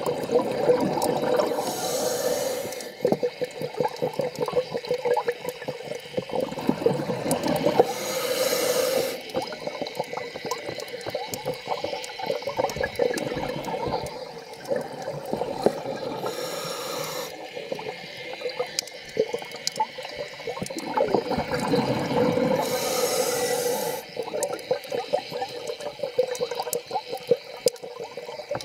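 Scuba diver breathing through a regulator underwater. A short hiss comes with each inhalation about every six to seven seconds, with gurgling and bubbling of exhaled air in between.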